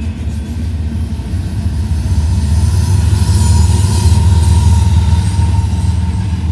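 A pair of BNSF diesel locomotives in a double-stack intermodal train passing close by. Their deep engine rumble builds to its loudest about four seconds in, then eases as they move away, with a faint thin whine that drops slightly in pitch.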